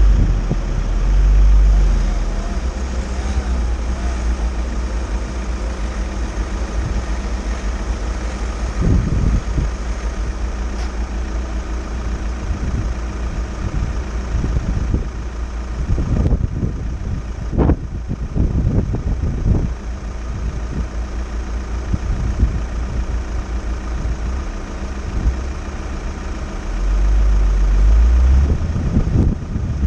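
Volkswagen T6 camper van's diesel engine idling while stopped. Wind rumbles over the microphone in gusts, loudest near the start and again near the end.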